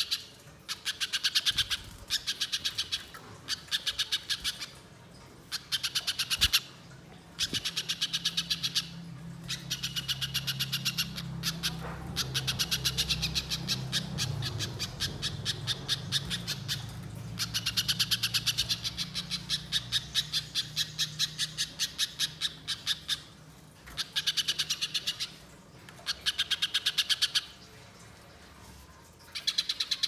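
Spiderhunter singing in fast, chattering runs of sharp high notes, each run lasting one to three seconds with short breaks between, and one longer unbroken run in the middle.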